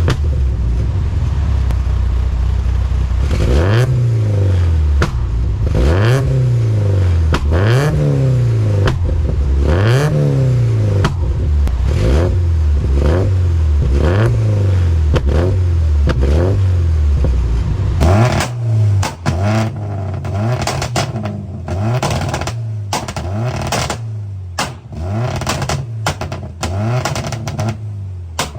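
A Porsche 944's 2.5-litre eight-valve four-cylinder, running on E85 through an equal-length stepped header, is revved over and over in blips. Each rev rises and falls over about two seconds and ends in sharp pops and bangs on the overrun. From about two-thirds of the way in, the blips turn shorter and choppier, with many more bangs.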